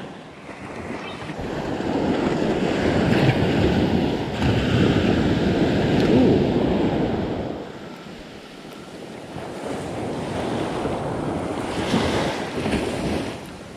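Small surf breaking and washing up a sandy beach in two swells, one building a couple of seconds in and falling away before the middle, a second smaller one near the end, with wind on the microphone.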